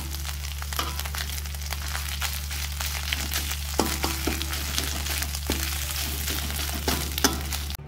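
Sambal belacan (chilli and shrimp paste) sizzling in a hot wok while a metal spatula stirs and scrapes it, with frequent clicks of the spatula against the wok over a steady low hum. The sound cuts off suddenly near the end.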